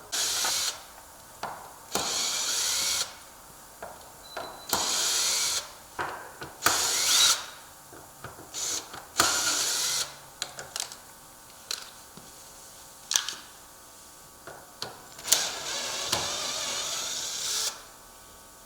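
Power drill/driver running in short runs of about a second, backing out screws to take the handles and a protective plate off a door unit, with clicks and knocks of parts being handled between runs.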